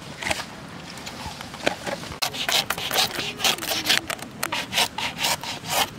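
A thin blade sawing through the fibrous sheath of a banana trunk, giving rapid rasping scrapes. The strokes are sparse at first, then come quick and steady, about four a second, from about two seconds in.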